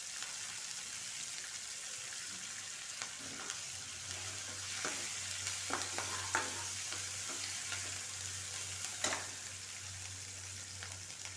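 Onion and spices sizzling in hot oil in a kadhai, with a steady hiss and the sharp taps and scrapes of a spatula stirring against the pan, the loudest tap about nine seconds in. A steady low hum comes in about four seconds in.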